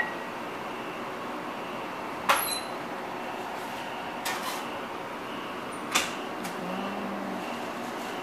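A sandwich-shop toaster oven door opened and shut: two sharp clacks a little under four seconds apart, with a few lighter knocks between, over a steady background hum.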